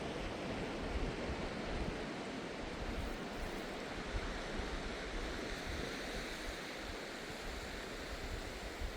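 Surf washing on the beach, a steady rush of waves, with wind buffeting the microphone in low gusts.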